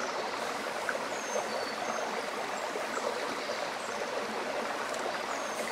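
A creek running: a steady rush of flowing water.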